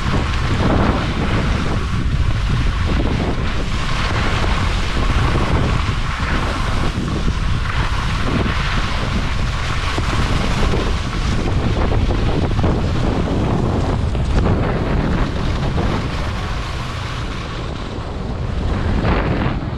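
Wind buffeting the microphone while skiing downhill at speed, with the hiss and scrape of Armada Declivity 92 Ti skis running and carving on snow.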